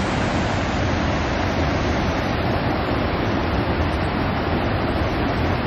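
Steady rushing of river water pouring over a low concrete weir and running over rocks.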